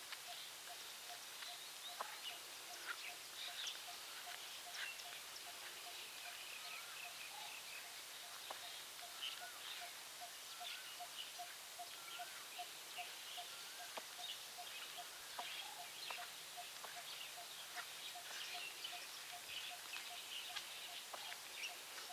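Birds calling: one single note repeated evenly about twice a second, with many short, high chirps scattered over it.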